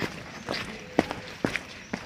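Footsteps of a hiker walking on a dirt forest trail, about two steps a second.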